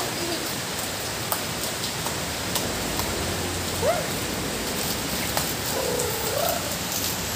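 Steady rain shower falling on a tiled balcony, with scattered sharp drip hits. A few short rising high calls come about four seconds in and again around six seconds.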